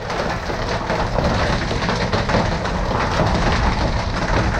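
Wind-driven hail and rain pelting down in a dense, steady patter of small impacts, with heavy wind buffeting the microphone.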